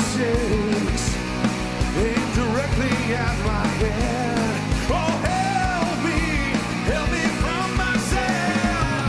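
A rock band playing live: a man singing into a microphone over a drum kit and the rest of the band, with regular drum hits under the sung melody.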